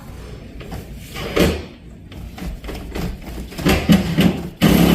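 Door handle of a Marks iQ lock being worked to test a failed internal latch, giving a series of metallic clicks and rattles. Near the end a louder, steady mechanical buzz starts.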